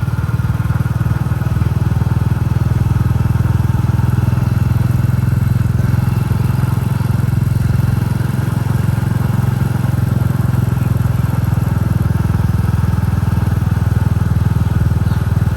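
Royal Enfield Classic 350's single-cylinder engine thumping along at a steady speed while the bike is ridden, with no change in revs.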